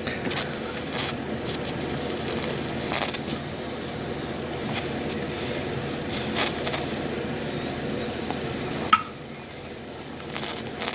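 Scratchy rubbing as an oxidized soldering iron tip is scrubbed clean, with a sharp click about nine seconds in.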